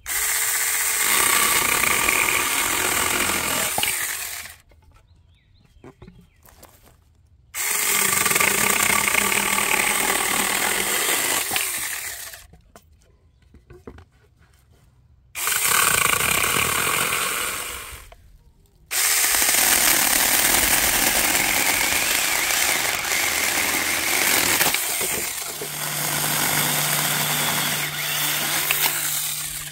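Saker 20-volt cordless mini electric chainsaw with a 4-inch bar cutting branches in four runs. Each run starts suddenly at full speed and stops after a few seconds, with short quiet pauses between.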